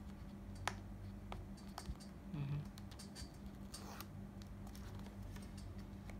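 Fingernails tapping and picking at the edge of a paperboard watch-band box while trying to open it: a few scattered light clicks and a brief scratchy scrape about four seconds in, over a steady low hum.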